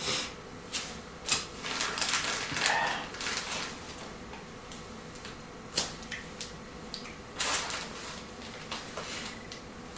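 Thin plastic bag crinkling and hard-coated wasabi peanuts clicking together as they are picked out of it by hand: scattered sharp clicks and short rustles, busiest in the first few seconds and again near the end.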